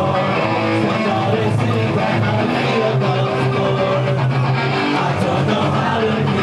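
Live rock band playing loud: strummed electric guitars over bass guitar and drums.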